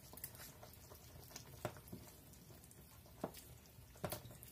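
Wooden spoon stirring creamy soup in a stainless steel pan, faint, with three light knocks of the spoon against the pan.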